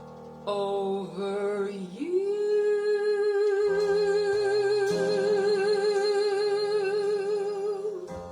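Recorded vocal music: a singer sings a short phrase, then slides up into one long held note with even vibrato lasting about six seconds, over soft accompaniment.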